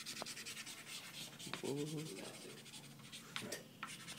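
Soft pastel stick scratching across drawing paper in rapid back-and-forth strokes, about eight a second, as an area is filled in with colour. A brief faint voice comes in about a second and a half in.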